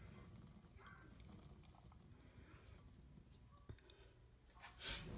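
Mostly near silence, with faint handling sounds as canned corn slides out of a plastic bowl into a glass mixing bowl. A short scraping knock near the end as the upturned plastic bowl is tapped empty.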